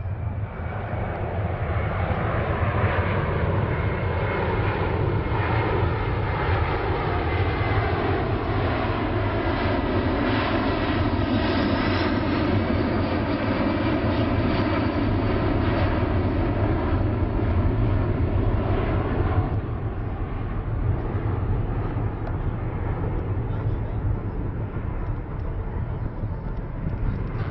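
Boeing C-17 Globemaster III's four Pratt & Whitney F117 turbofan engines during a low flyby: a loud, steady rumble with whining tones that slide down in pitch as the jet passes. About twenty seconds in, the high part of the sound drops away as the aircraft banks away.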